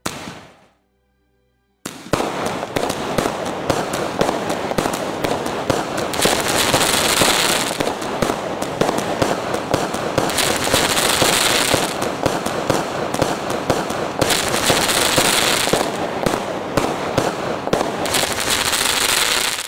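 Multi-shot firework cake firing: after a two-second pause, a dense, continuous run of shots, bursts and crackling with a loud hissing crackle swelling about every four seconds, cutting off abruptly at the end.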